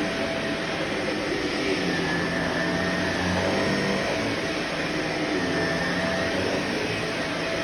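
Vacuum cleaner running steadily, its motor rushing with a faint whine that wavers slightly in pitch.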